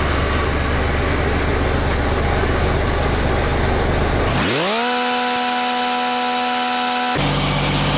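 Lincoln SA-250 welder-generator's engine running at a low, steady idle. About four and a half seconds in it speeds back up to a steady higher speed, and near the end its tone changes abruptly.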